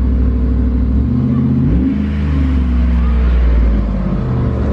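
2007 Dodge Ram pickup's engine running, revved up about a second in with its pitch rising, then dropping back toward idle over the next few seconds.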